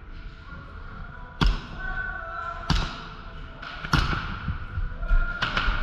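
Airsoft gas pistol shots: four sharp cracks, roughly one every second and a quarter.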